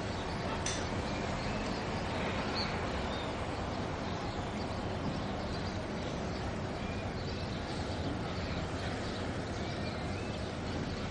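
Steady outdoor background noise, with a few faint short bird chirps now and then.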